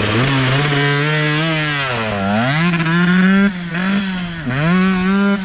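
Husqvarna TC125 two-stroke 125 cc dirt bike accelerating away under throttle, its revs climbing and holding, then dropping and climbing again twice, about two seconds in and near the end.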